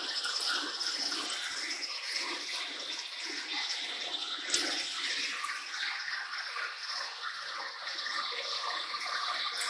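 Warner & Swasey turret lathe drilling through a plate in its spinning chuck under flood coolant: a steady rush and splash of coolant over the chuck, drill and chips, with one sharp tick about four and a half seconds in.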